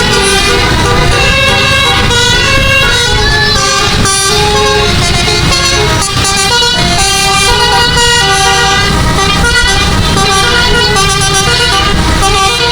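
Bus's 12-note Basuri telolet musical horn playing a tune in quick stepped notes, with a low rumble underneath.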